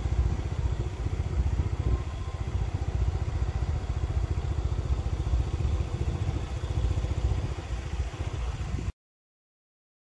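Motorcycle ride heard from the rider's position: the engine running under heavy, gusting wind rumble on the microphone. It cuts off abruptly to dead silence about nine seconds in.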